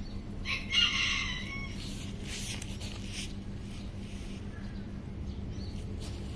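A rooster crows once, starting about half a second in and lasting about a second, over a steady low hum.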